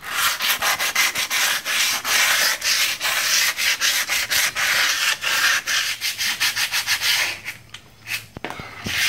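Sandpaper rubbed by hand back and forth over the primed steel front axle housing: quick rasping strokes, several a second, scuffing the surface so the primer will bite. The strokes ease off over the last couple of seconds.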